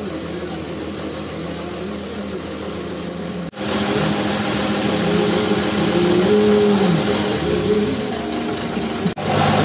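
Houseboat engine running steadily, a low hum with a wavering tone over it in the middle. The sound drops out for an instant twice.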